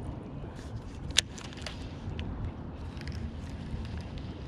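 Baitcasting reel being handled and reeled on a fishing boat: one sharp click about a second in, then a few fainter ticks, over a low steady rumble.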